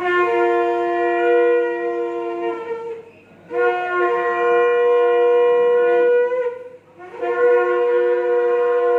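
Several shofars (ram's horns) blown together in long held blasts, three in a row with short breaks between them, the horns sounding at different pitches at once.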